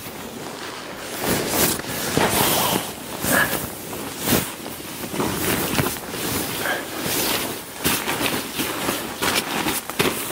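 Fabric rustling and crinkling as a sleeping bag and bedding are handled and shifted under a tarp, with many short irregular crackles and scuffs.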